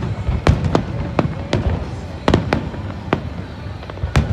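Aerial fireworks bursting: a rapid string of about eight sharp bangs in four seconds, some close together, over a continuous low rumble of more distant explosions.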